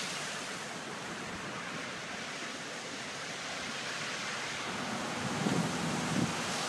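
Steady rushing of floodwater, an even noise with no distinct events.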